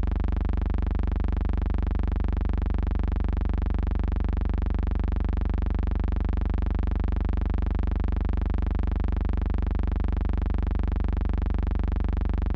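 Steady low electrical buzz with many overtones, unchanging in pitch and loudness throughout.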